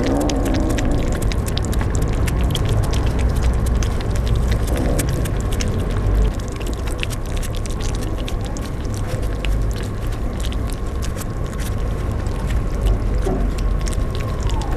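Several young kittens eating wet cat food from a shallow plastic tray: a constant patter of small wet chewing and lapping clicks, over a steady low rumble and a thin steady tone that dips in pitch near the end.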